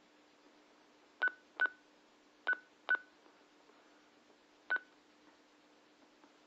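Keypad beeps from a handheld two-way radio as its buttons are pressed: five short beeps of one pitch, irregularly spaced, the last after a pause of nearly two seconds. A faint steady hum runs underneath.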